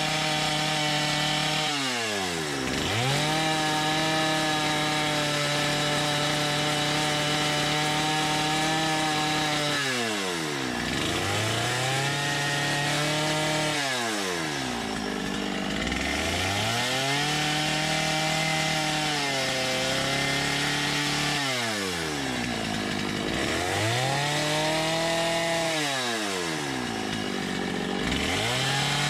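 Gas chainsaw running at high speed as it carves into wood, the throttle let off so the engine drops toward idle and then revved back up about five times.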